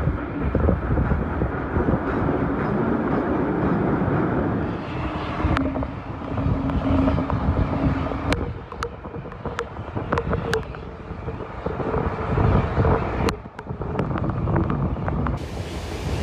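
Passenger carriage of a steam-hauled train running at speed, heard at an open window: a steady heavy rumble of wheels on rails, broken by sharp clicks, with wind buffeting the microphone.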